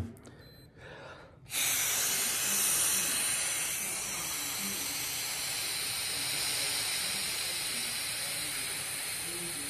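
A long, steady exhale blown through the mouthpiece of a JASTEK EK-90 breathalyzer to give a breath alcohol sample. It starts about a second and a half in and holds for about eight seconds as an even hiss.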